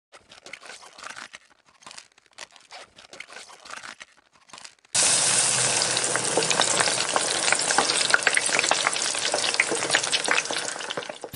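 Food frying in hot oil: a loud, dense sizzle full of crackles that starts suddenly about five seconds in, after a few softer, scattered sounds.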